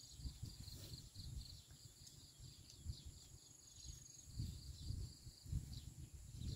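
Field insects such as crickets chirping in a quick, even pulsing trill, with thin steady high buzzing above it. An uneven low rumble runs underneath and swells a few times.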